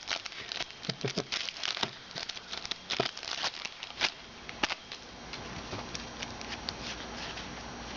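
Plastic wrapper of a 2009 Upper Deck Heroes football card pack crinkling and tearing as it is opened, with the cards handled. There is a dense run of crackles for the first five seconds or so, and it is quieter after that.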